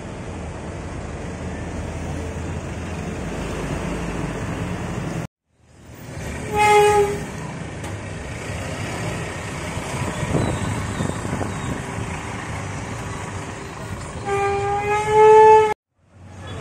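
Provincial diesel buses running in street traffic, with a steady rumble of engines and tyres. A vehicle horn sounds twice: a short blast about six seconds in and a longer, louder one near the end that steps slightly up in pitch. The sound cuts out briefly twice.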